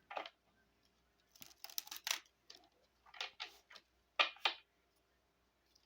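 A Lenormand fortune-telling card deck being shuffled by hand, in several short bursts of card-sliding noise with brief pauses between them.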